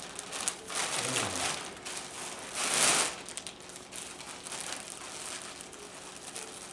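Gift packaging crinkling and rustling as a present is handled and unwrapped, in uneven bursts with the loudest about three seconds in.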